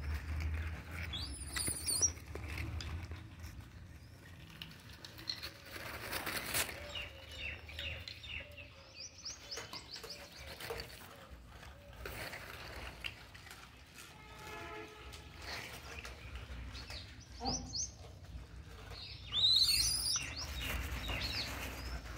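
Birds chirping in short high calls, loudest near the end, over a low rumble and occasional rustling.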